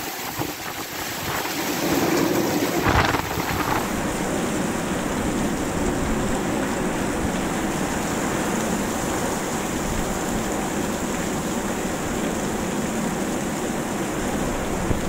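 Heavy rain pouring down in a thunderstorm, a dense steady hiss of the downpour that grows louder about two seconds in and then holds steady.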